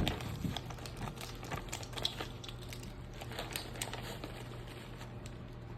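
Scattered light clicks and scraping as dark brown sugar is scooped out with a tablespoon measure, over a steady low hum.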